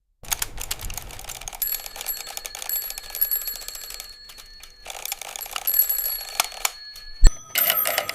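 Several mechanical alarm clocks ringing, a rapid clatter of clicks with steady high ringing tones. The ringing breaks off briefly twice, and a single loud thump about seven seconds in is followed by denser ringing.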